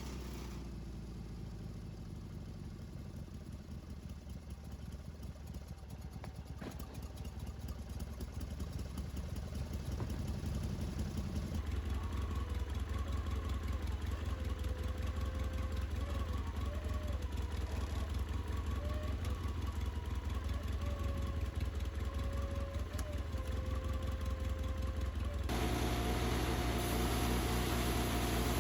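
An engine running steadily, getting louder about ten seconds in and settling into a steady heavier note, with a higher whine that wavers in pitch for a stretch before the sound changes near the end.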